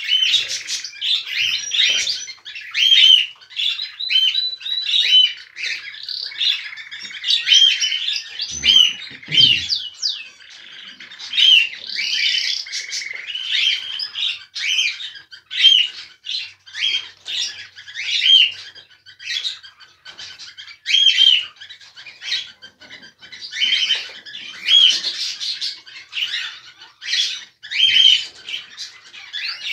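Cockatiels chirping and calling over and over, a busy run of short, bright chirps several times a second.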